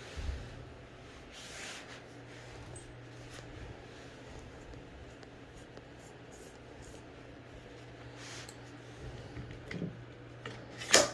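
Faint handling and rubbing of rifle parts and tools during reassembly of an AR-style rifle, over a steady low hum, with a few small clicks and then one sharp click near the end.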